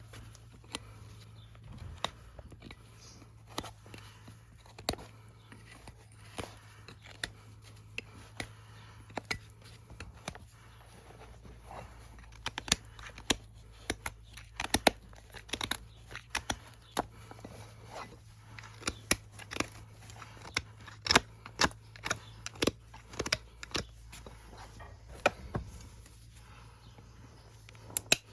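Hoof trimming tools cutting into a horse's hoof horn: irregular sharp snips and cracks, about one a second at first and coming faster and louder from about halfway. A low steady hum runs underneath.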